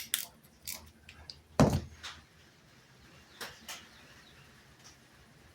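Handling noise: a scatter of light clicks and knocks, with one louder knock about a second and a half in.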